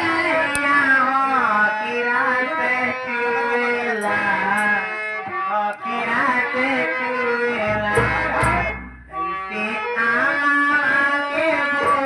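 Live nautanki stage music: a reedy melody line of the harmonium kind, its notes sliding and shifting. A brief low rumble comes about eight seconds in.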